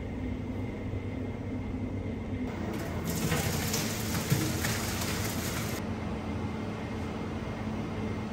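A wet onion mixture and its liquid poured from a large metal pan into a big stainless steel stock pot, splashing and pattering from about two and a half seconds in until just before six seconds, over a steady kitchen hum.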